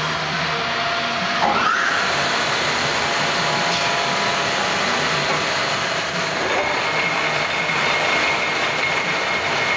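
Large Poreba TPK-90 engine lathe running under power over a constant machine-shop hum, with a brief rising whine about a second and a half in and a steady high whine from about six seconds on as the four-jaw chuck turns.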